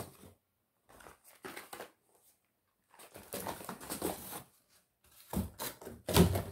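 Irregular rustling and bumping of boxes and packaging being handled and packed, in three bursts, the loudest near the end.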